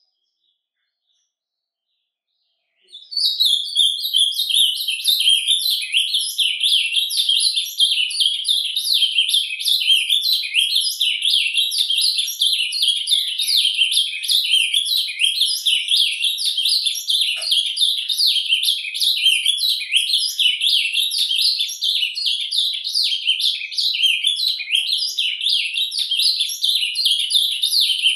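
Ultramarine grosbeak (azulão) singing surdina, its continuous subsong: a rapid, unbroken stream of high chirps and twitters that starts about three seconds in.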